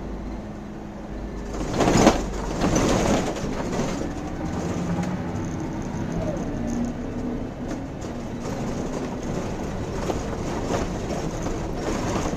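Mercedes O405N city bus's diesel engine running at low road speed, heard inside the cab. A loud clattering rattle from the bus comes about two seconds in and lasts around a second and a half.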